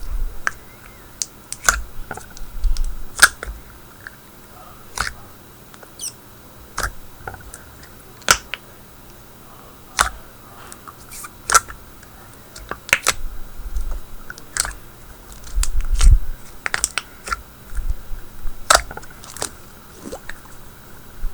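Thick slime being squeezed and pressed by hand, giving irregular sharp clicking pops, roughly one a second, with soft low squishes in between.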